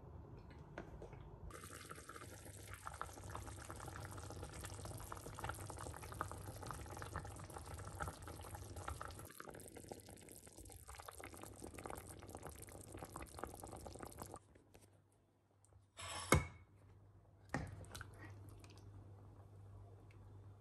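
Tomato soup simmering in a pan, bubbling and popping softly. Near the end there are two sharp knocks, the first the loudest, a second and a bit apart.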